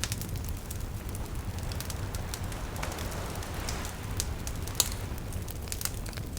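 Wood bonfire crackling and popping in scattered sharp snaps over a steady low rumble of surf, with a wave washing in about three seconds in; the sharpest pop comes near the end.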